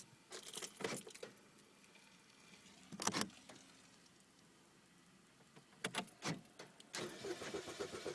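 Car keys jangling on the ring in short bursts as the ignition key is worked, with no engine running: a 2005 Chevy Malibu failing to start, a fault the owner blames on the Passlock anti-theft system.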